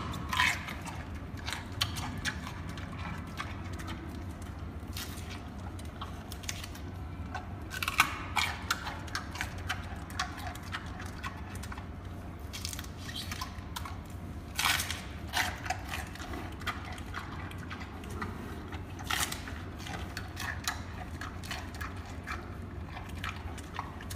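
Giant panda chewing and crunching food, a run of irregular crisp crunches and bites, over a steady low hum.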